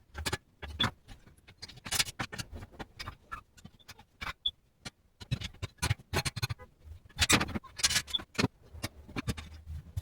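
Sped-up sounds of assembling a propane camp stove: a rapid, irregular run of clicks, knocks and scrapes from metal parts and tools being handled.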